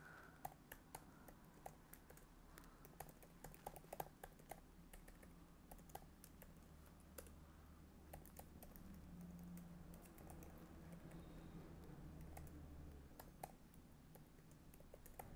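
Faint typing on a computer keyboard: irregular bursts of key clicks as code is typed.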